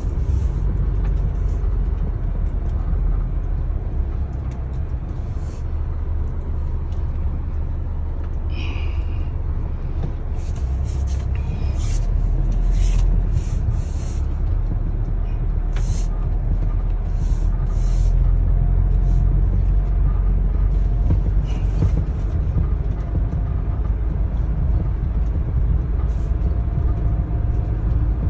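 A car driving over a grassy track, heard from inside the cabin: a steady low rumble of engine and tyres, with a run of short clicks and rattles in the middle.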